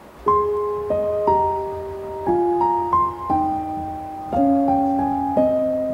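Background piano music that comes in just after the start: a slow melody of notes and chords, a new one struck about once a second and each left to ring and fade.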